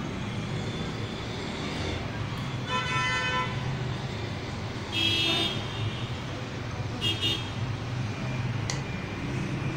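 Road traffic with a steady engine hum, and vehicle horns tooting three times, briefly, about three, five and seven seconds in.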